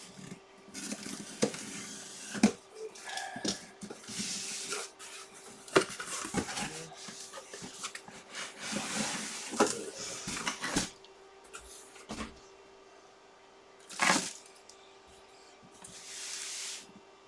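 Cardboard shipping box being opened and handled: rustling, scraping and scattered knocks as a boxed replica football helmet is pulled out, with one sharper scrape near the end.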